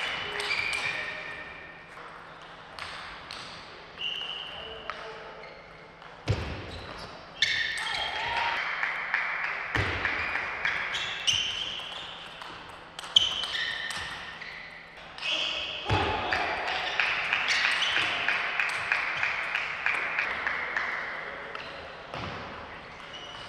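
Table tennis rally: the celluloid-type ball clicking off rackets and the table in quick exchanges, ringing in a large, mostly empty hall, with a few heavier knocks along the way.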